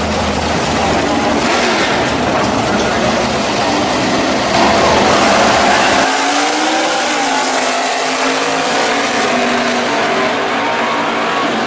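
Two drag cars' engines running loud at the starting line, then launching and accelerating hard down the strip, the engine pitch climbing about six seconds in as the deep rumble falls away with the cars pulling off.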